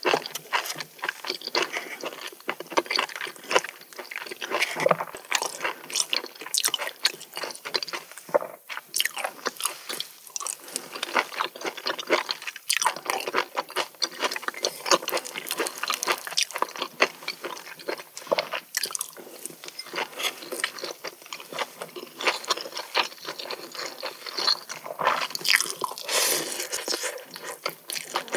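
Close-miked eating of raw seafood: continuous wet chewing and crunching, with many sharp irregular crackles.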